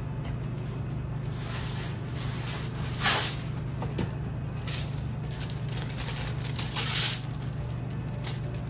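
Steady low hum with a few short rustling, hissing noises over it, loudest about three seconds in and again near seven seconds.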